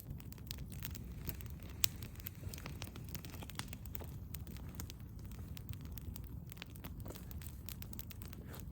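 Wood campfire crackling, with irregular sharp pops over a low steady rush; one pop stands out about two seconds in.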